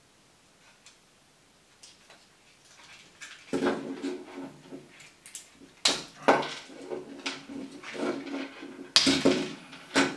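Hard plastic parts of a dismantled Air Wick automatic air freshener being handled and pried apart: a few faint ticks, then from about three and a half seconds in a run of clicks, knocks and short creaks as the motor mechanism is worked out of its housing. The loudest snaps come near six and nine seconds in.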